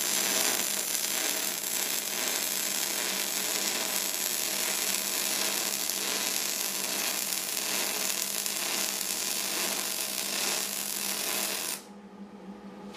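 MIG welding arc laying a bead on a metal plate, a steady, even crackle with sparks flying. The arc cuts off suddenly about a second before the end.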